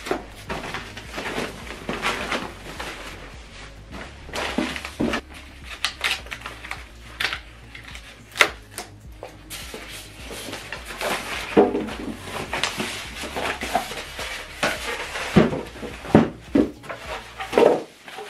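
Polystyrene foam packing blocks being worked off a boxed subwoofer and set down: irregular scraping, creaking and rustling of foam and plastic bag, with knocks against the table.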